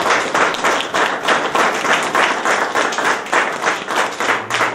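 Small audience applauding: many people clapping at once in a dense, even patter after a speech.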